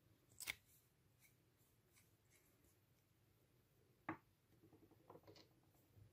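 Near silence broken by small handling sounds of plastic makeup containers: a sharp click about half a second in as the makeup wand is pushed back into its plastic tube, another click about four seconds in, then a few light taps and clicks.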